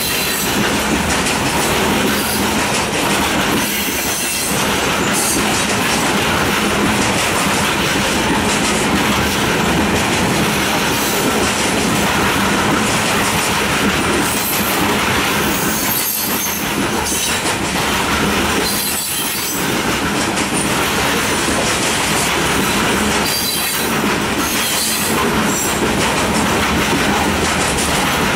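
Coal cars of a freight train rolling past close by: a steady, loud rumble and clatter of steel wheels on the rails. A few brief high wheel squeals come through now and then.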